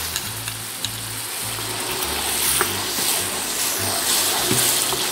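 Blended chili paste sizzling as it fries in hot oil with chopped garlic and shallots in a wok, stirred with a wooden spatula. Background music with a low bass line plays underneath.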